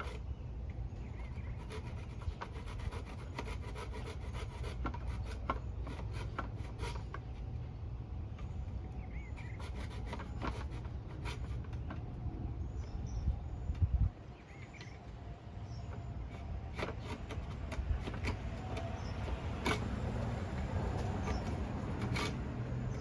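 Multi-tool knife blade scraping and cutting into bamboo: a run of irregular scrapes and clicks, with a sharper knock about fourteen seconds in.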